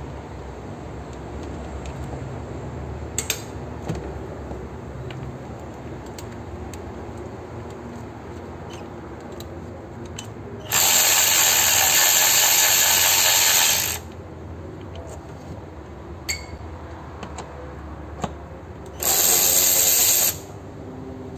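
Cordless 18 V electric ratchet running twice, loosening the air filter box bolts: one run of about three seconds, then a shorter burst near the end. A few small clicks of handling come in the quieter stretches.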